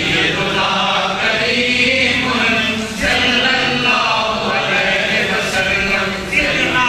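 A crowd of men chanting devotional words together, many voices overlapping in repeated phrases.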